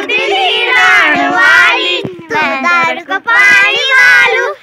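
Children singing loudly in high voices, close to the microphone.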